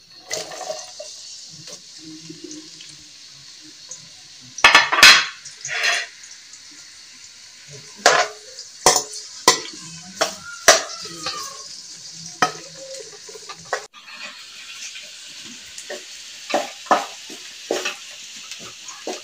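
Sliced onions frying in hot oil in a frying pan, with a steady sizzling hiss. A metal spoon stirs them, knocking and scraping against the pan in sharp clatters: a loud cluster about five seconds in, then single knocks every second or so.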